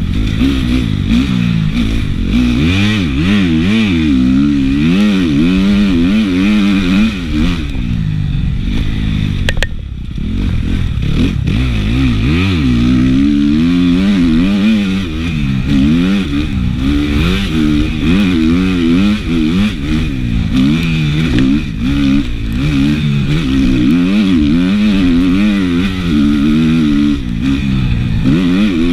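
Dirt bike engine revving up and down as it is ridden hard on a motocross track, its pitch rising and falling every second or so, with a short lull in the revs about ten seconds in.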